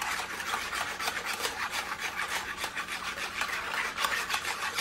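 Wire whisk scraping rhythmically around a plastic mixing bowl, whisking milk into vanilla instant pudding mix, several quick scratchy strokes a second.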